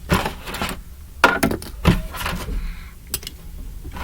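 Plastic model-kit parts being handled, giving several sharp clicks and knocks, the loudest about a second in.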